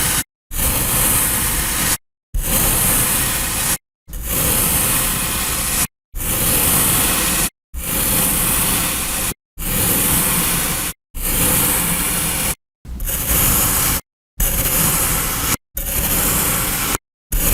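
Kinetic sand being cut: a dense, hissing scrape heard in short clips of one and a half to two seconds, each cut off abruptly by a brief silence.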